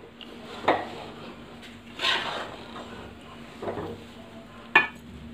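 Metal spatula stirring and scraping roasted flour and chopped nuts around a metal kadhai, with swishing scrapes and two sharp clinks of spatula on pan, one soon after the start and one near the end.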